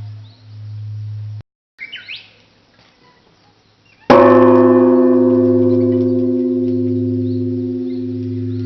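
Large Japanese temple bell (bonshō) at Katsuo-ji: the last of one stroke dies away in a slow pulsing hum, then about four seconds in the bell is struck again with a wooden beam, ringing out loudly and settling into a long, slowly fading hum that throbs. Small birds chirp faintly.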